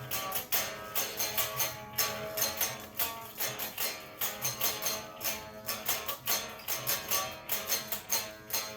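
Music: a guitar strummed in a steady rhythm, about four strokes a second, in an instrumental passage of a song.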